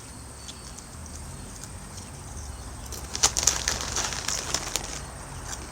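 Doritos chip bag crinkling and rustling, in irregular crackly bursts from about three seconds in, over a faint low hum.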